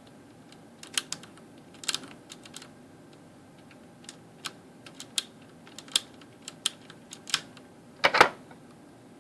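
Keys on a Ducky Shine 3 mechanical keyboard pressed one at a time, giving about a dozen sharp clicks at uneven spacing. The loudest and longest press comes near the end.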